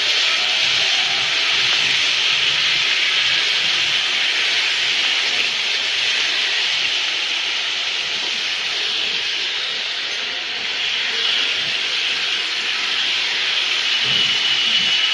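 Rain falling steadily on wet pavement, a constant hiss.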